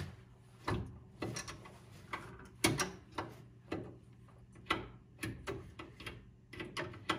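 Hydraulic control levers of a John Deere X758 lawn tractor being worked back and forth, giving a dozen or so short mechanical clicks and clunks about half a second apart: the hydraulic system's pressure is being relieved before a line is opened.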